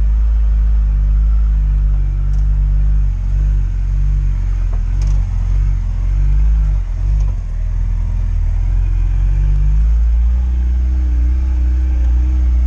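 Lada Niva engine running under way with a low, wavering drone; about ten seconds in the engine note rises and holds higher as it picks up revs.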